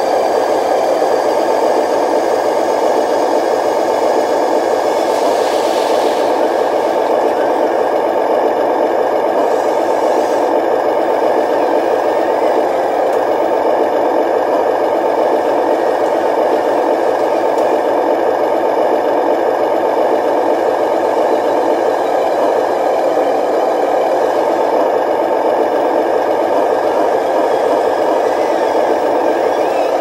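Radio-controlled 12-wheel dump truck running: a steady mechanical whir with a light rattle.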